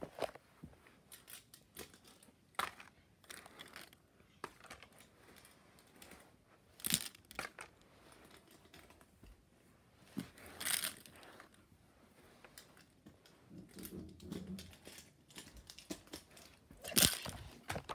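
Brief rustles and handling noises, a handful of them spread several seconds apart.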